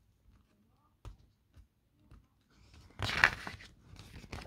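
A paper page of a paperback picture book being turned by hand: a faint tick about a second in, then a loud crinkling rustle about three seconds in that goes on more softly as the page is laid over.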